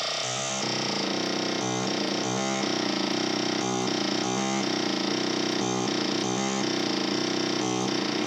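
VST software synthesizer (the Rolend JP-680) playing a sustained, bright patch, with a repeating rhythmic pattern of short notes coming round about once a second.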